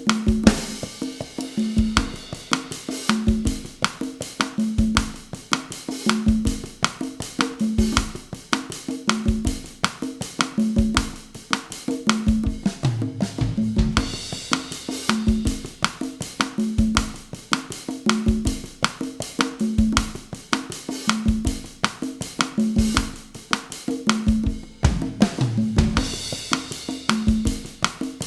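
Bossa nova groove at 160 bpm played on drum kit and conga, with steady quick ticks and a pitched drum tone about every three-quarters of a second. A cymbal wash with a deeper drum hit marks the start of each phrase: near the start, about halfway, and near the end.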